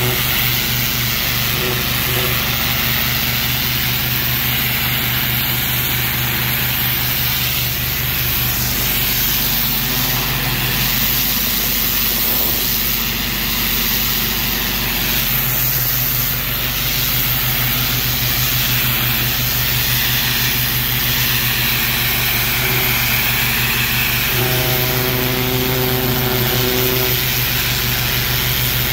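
Pressure washer running steadily, its high-pressure spray jet hissing as it blasts dirt off a brick wall, over the constant hum of the machine.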